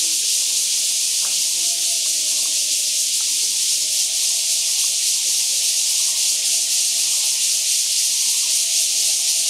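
Steady, high-pitched buzzing of a cicada chorus, unbroken and even in level.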